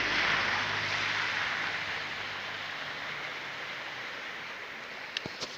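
Vehicle driving through floodwater: a hiss of splashing water with a low engine hum, both fading away over a few seconds. A few faint clicks come near the end.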